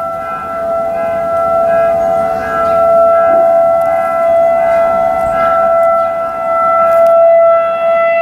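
Outdoor tornado warning siren sounding one steady, held tone during a scheduled test.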